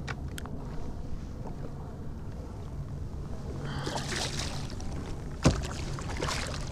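Hooked striped bass splashing at the water's surface beside a kayak, in two splashy spells, with one sharp knock about five and a half seconds in, over a steady low rumble.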